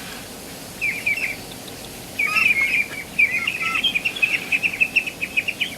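Ducklings peeping in a crowd, many short, high calls that become a rapid, dense chatter about two seconds in, as they scramble for fish pellets being fed to them.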